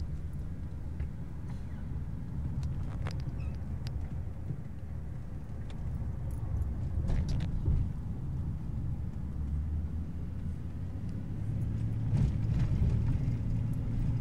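Road noise heard inside a moving vehicle's cabin: a steady low rumble of engine and tyres, with a few faint clicks.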